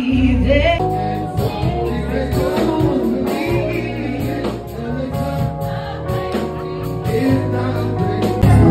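Live band music with a singer performing, recorded from among the audience.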